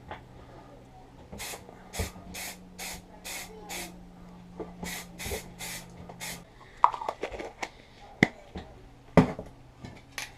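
Aerosol primer spray can being sprayed in short hissing bursts, about eleven in two runs, onto motorbike parts. A few sharp knocks follow near the end.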